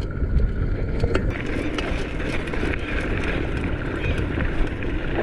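Mountain bike rolling fast on pavement, with wind rushing over the microphone and tyre and drivetrain noise, plus a few sharp clicks and rattles.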